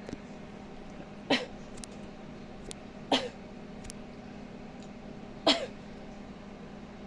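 Three short vocal sounds about two seconds apart, each sharp at the start and falling quickly in pitch, over a steady low hum.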